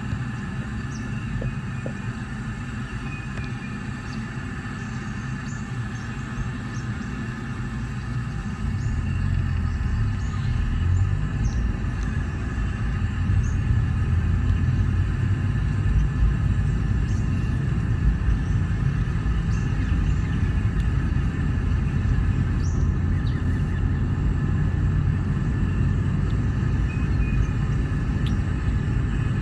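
Road and engine noise heard inside a moving car's cabin, a steady low rumble that grows louder about nine seconds in.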